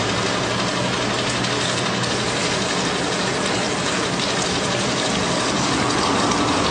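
Water spraying from a garden hose, its end pinched under a thumb, hissing steadily onto a concrete floor and over a pigeon. A steady low motor hum runs underneath.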